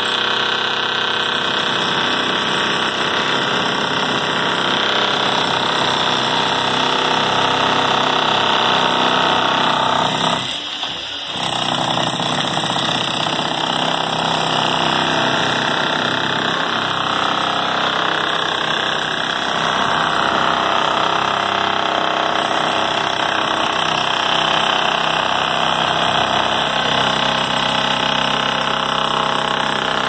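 Corded electric demolition hammer chiselling through a reinforced concrete slab, hammering continuously with a brief pause about ten seconds in.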